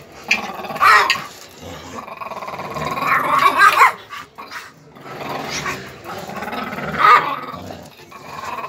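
Dogs growling while they play-wrestle, among them a five-month-old pit bull puppy, in rough loud bouts about a second in, again around three to four seconds, and about seven seconds in.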